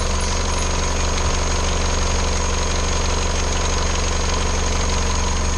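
Isuzu D-Max 3.0 four-cylinder turbo diesel engine idling steadily, freshly refilled with new oil and filter.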